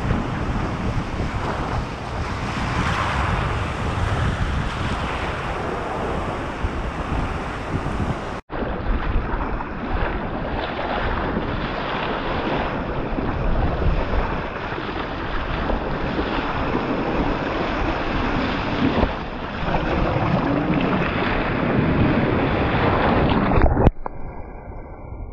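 Breaking surf and churning water with wind buffeting an action-camera microphone, as a kayak rides the waves and spray washes over the camera on its deck. The sound is a dense, even rush that changes abruptly about a third of the way through.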